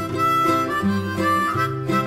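Background music: a melody line over a bass line, with notes changing several times a second.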